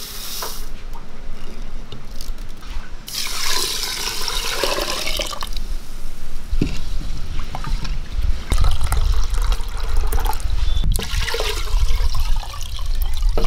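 Uncooked basmati rice pours briefly into a clay pot, then water is poured in from another vessel in two goes, about three seconds in and again from about eight seconds in, splashing and filling the pot to soak the rice.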